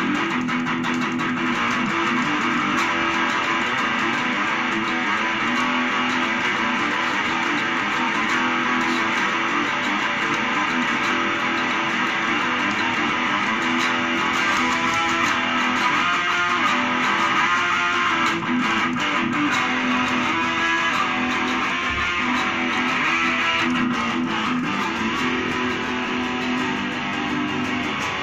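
Electric guitar played without pause, a steady stream of picked and strummed notes.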